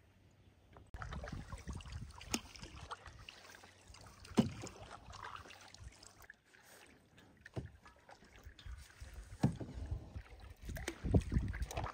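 Canoe being paddled: water swishing and splashing around the paddle and hull, with a few sharp knocks on the canoe.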